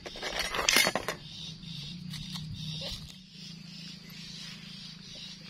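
A metal utensil clinking and scraping against a ceramic plate in a quick run of sharp clinks for about a second near the start, then only a few small knocks.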